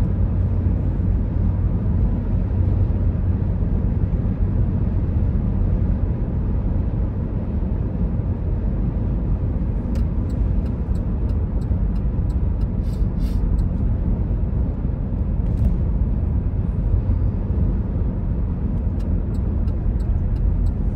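Car driving at highway speed, heard from inside the cabin: a steady low rumble of road and tyre noise with the engine underneath. Faint scattered ticks come in over the second half.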